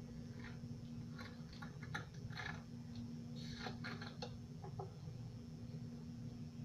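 A run of short, faint clicks and scrapes as a marinade injector syringe is refilled from a small glass bowl: the needle knocks against the glass, then the plunger is worked with the syringe held upright. The clicks stop about five seconds in, over a steady low hum.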